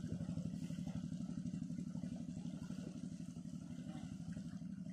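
A small engine running steadily: a low, evenly pulsing hum.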